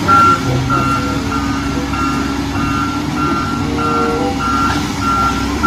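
Volvo EW wheeled excavator's warning alarm beeping steadily, about two short beeps a second, over its diesel engine running as it moves through mud.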